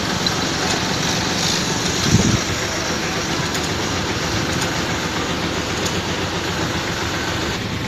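Container truck's diesel engine running steadily, heard from inside the cab, with a brief louder low rumble about two seconds in.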